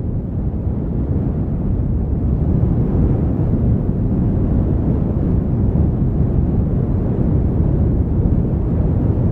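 Steady, loud, low rumbling outdoor noise with no clear crackles or tones. It swells slightly over the first couple of seconds, then holds steady.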